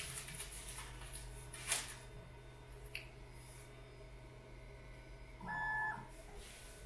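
Steady hum from the 3D printer's fans, with a couple of light clicks. About two-thirds of the way in there is a brief, even whine of about half a second as one of the printer's stepper motors moves an axis.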